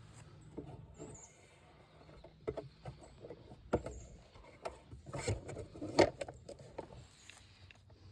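Irregular rustling with scattered sharp clicks and knocks, the loudest about six seconds in.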